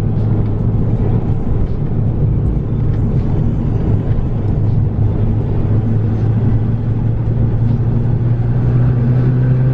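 Car engine running with a steady low drone, its pitch edging up slightly near the end.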